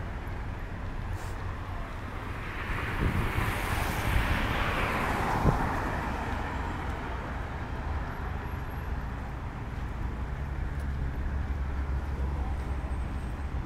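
Road traffic: a vehicle passes close, swelling and fading between about three and six seconds in, over a steady low rumble of traffic, with one sharp tick about five and a half seconds in.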